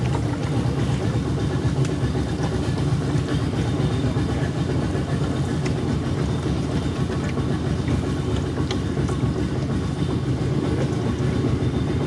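A small open motorboat's engine running steadily as the boat moves along a mangrove channel. It is a constant low drone with a few faint ticks over it.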